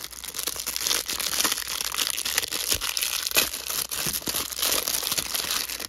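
Clear plastic wrapper crinkling and tearing as it is peeled off a stack of trading cards, a continuous run of sharp crackles.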